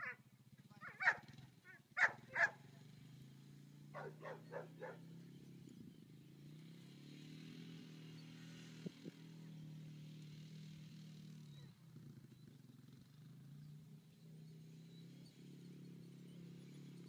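A border collie barks sharply four times in the first two and a half seconds, then four quicker, quieter barks follow about four seconds in. A low, steady engine hum from an idling quad bike carries on underneath.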